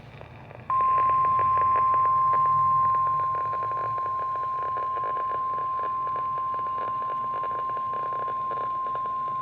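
NOAA Weather Radio 1050 Hz warning alarm tone: one steady, unbroken beep over faint radio hiss, starting about a second in and held throughout. It signals that an emergency warning broadcast follows.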